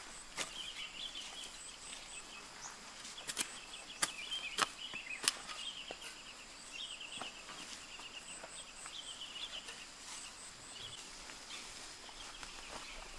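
A long-handled garden hoe chopping and scraping into loose soil, a handful of sharp strikes in the first half, with steady chirping in the background.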